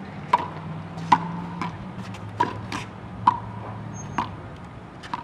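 Racquetball rally: a series of sharp smacks as the ball strikes racquet strings and the concrete walls and floor of the court, about eight hits, each ringing briefly off the walls. A low steady hum sits underneath.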